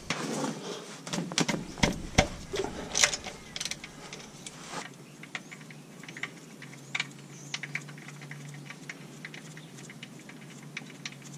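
A hand tool clicking and knocking against the sump drain plug as it is undone for an oil change. The clicks are sharp in the first five seconds, then lighter and quicker.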